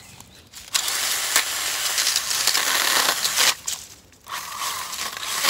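Stihl cordless pruner, a small handheld chainsaw, cutting through woody multiflora rose canes at ground level. About a second in comes a loud rasping crunch of the chain biting through the stems for nearly three seconds, then a short pause and the electric motor's steady whine as the chain runs free.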